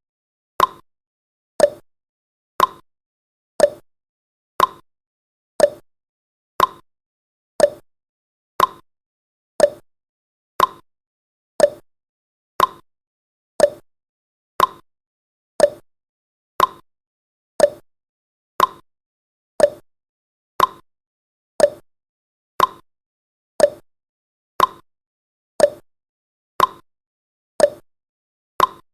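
Countdown timer's ticking sound effect: a short, sharp tick once every second, evenly spaced.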